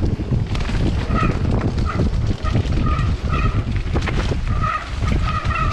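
Mountain bike ridden fast down a rough trail: a steady rumble with rattling and knocking over the ground, and short high squeals from the brakes repeating every half second to a second as they are dragged.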